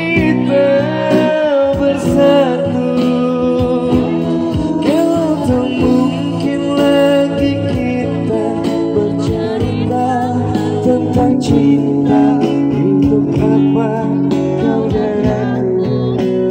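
Live acoustic band music: male voices singing into microphones over strummed acoustic guitar, with percussion keeping time, amplified through PA speakers.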